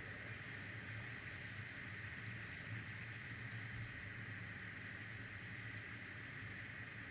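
Steady background hiss with a low hum from an outdoor eagle nest camera's microphone, unchanging throughout, with no bird calls.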